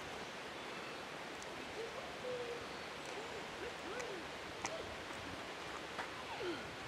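A dog, likely the golden retriever, giving faint, short, high whines over steady outdoor background noise. The whines come in a quick run of several about halfway through, then a few rising whines near the end.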